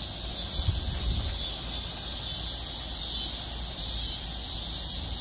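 Steady, high-pitched chorus of insects droning without a break. A soft low thump is heard just under a second in.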